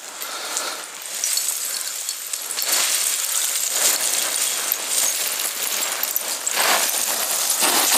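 Footsteps crunching and sliding on a slope of loose gravel and stones, small stones clinking underfoot, with several heavier crunches.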